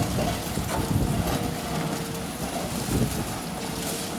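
Heavy machinery engine running at a demolition site, with wind buffeting the microphone.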